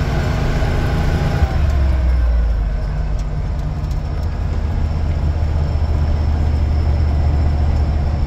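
1978 Ford Bronco's fuel-injected 460 big-block V8 heard from inside the cab while driving, with road noise. The engine note drops about a second and a half in, then settles into a steady low drone.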